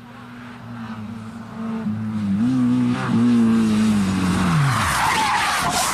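Rally car engine growing louder as the car approaches, its note rising in two steps, then dropping away sharply as the driver lifts off about five seconds in. A loud rush of noise with tyre squeal follows as the car skids.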